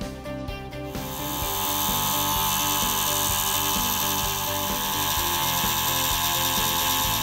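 Hegner scroll saw starting up about a second in and cutting a blank out of thick brass plate, its fine blade giving a steady high hiss. Background music plays underneath.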